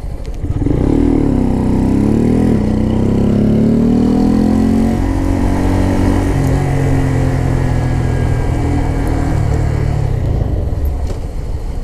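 2017 Honda Grom's 125 cc single-cylinder engine pulling away and accelerating through the gears, its pitch climbing, dropping at a shift about two and a half seconds in, and climbing again before it settles into a steady cruise.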